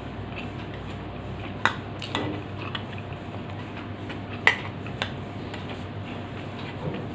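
Cutlery clinking against a dish while eating: several sharp, scattered clinks, the loudest about four and a half seconds in, over a steady low background hum.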